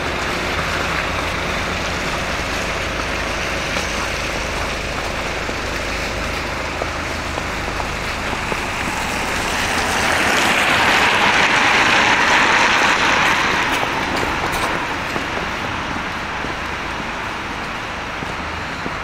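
Road traffic on a wet, slushy street: a steady hiss of tyres on the wet road, swelling as a van passes close about ten seconds in and fading over a few seconds.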